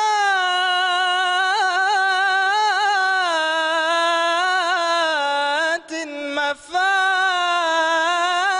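Solo male voice chanting an unaccompanied Arabic Islamic devotional song (inshad), holding one long ornamented melismatic line that wavers up and down in pitch, with two brief breaks about six seconds in.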